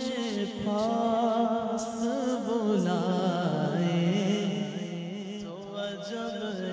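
A man singing a naat unaccompanied, in long drawn-out, ornamented lines whose pitch wavers and slides. A held lower note runs beneath the melody.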